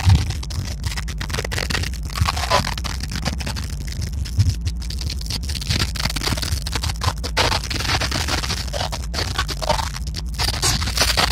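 Scraping and rubbing noise from the camera's own microphone being handled, with irregular clicks, over a steady low rumble.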